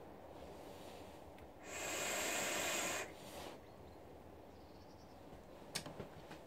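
Vaping on an e-cigarette: a loud hiss of breath for just over a second, about two seconds in, with softer breathing around it as a large vapour cloud is blown out. A few faint clicks come near the end.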